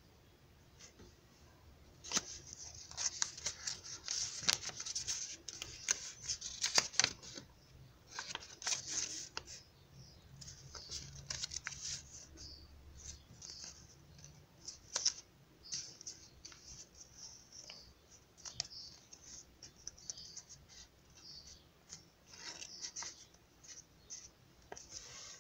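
Sheet of origami paper rustling and crinkling in the hands as it is creased and handled, in irregular bursts of crisp crackle with small clicks. It starts about two seconds in, is busiest for the next few seconds, then comes in scattered bursts.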